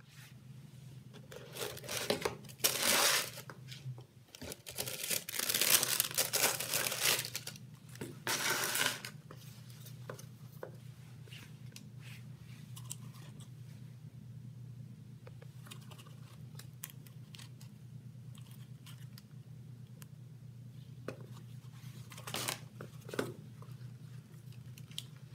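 A cardboard shoe box and its tissue paper being opened and handled, with loud rustling and crinkling in three bursts over the first nine seconds. After that come quieter handling sounds with scattered light taps and a short rustle near the end. A low steady hum runs underneath.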